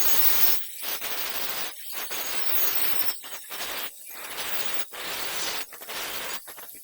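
Electric welding arc crackling and hissing while welding joints in 40 mm square steel tube, in a series of short runs of about a second each with brief breaks between, stopping at the end.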